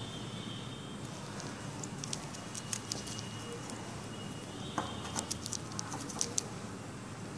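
Dissection handling noise: scattered light clicks and crackles from steel forceps and gloved hands on crumpled aluminium foil, over a steady background hiss, in two small flurries near the middle and later.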